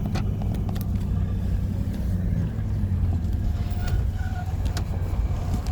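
Car driving, heard from inside the cabin: a steady low rumble of engine and road noise, with a few faint ticks.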